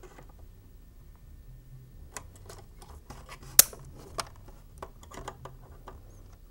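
Snap ring pliers clicking and scraping on the steel air-dryer chambers of an ozone generator while snap rings are worked out, a string of small metal clicks with one sharp click about three and a half seconds in.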